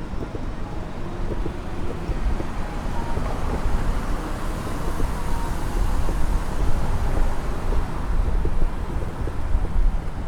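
Downtown street traffic: a low, steady rumble, with the noise of a passing vehicle swelling through the middle.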